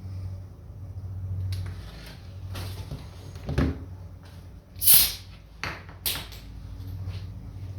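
Short hissing bursts of white paint being sprayed, the loudest about five seconds in, with a knock just before them and a steady low hum underneath.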